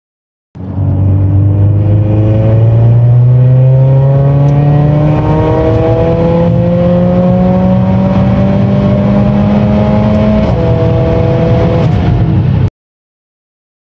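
Mercedes A45 AMG's turbocharged 2.0-litre four-cylinder, fitted with a larger aftermarket turbocharger, pulling hard under full acceleration, heard from inside the cabin. Its pitch climbs steadily, with a break about five seconds in and again near ten and a half seconds, and the sound cuts off suddenly near the end.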